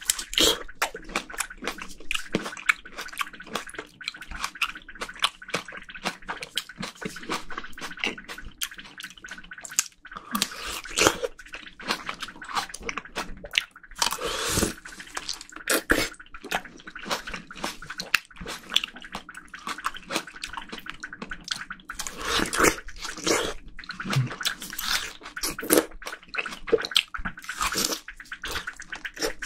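Close-miked biting into and chewing juicy cherry plums: repeated wet bites and chewing with many small clicks and slurps of juice.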